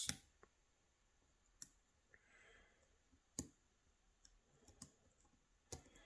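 Faint, sharp metallic clicks, a handful spread a second or so apart, from a hook pick and tension wrench working the gin spool pins inside an Assa 600 lock cylinder.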